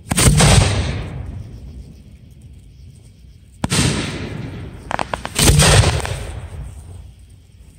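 Aerial fireworks bursting overhead. There is a loud boom right at the start and a sharp crack about three and a half seconds in. Around five seconds in comes a quick run of crackling pops and then another loud boom, each report trailing off in a long rumbling echo.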